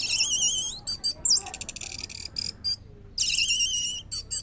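Orange-headed thrush singing: a high, warbling phrase, then a fast run of short, clipped notes, then a second warbling phrase about three seconds in.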